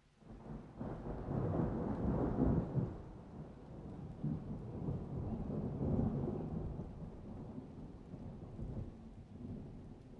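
Wooden spatula turning cooked biryani rice in a ceramic-coated pot: irregular scraping and rustling noise, low and rough, that starts suddenly about half a second in and comes and goes with the strokes.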